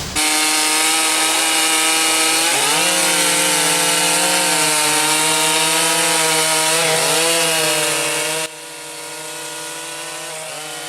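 Two-stroke chainsaw running at high revs and cutting wood, its engine pitch dipping twice as it bogs under load. About three quarters of the way through, the sound drops suddenly to a quieter level and the saw keeps running.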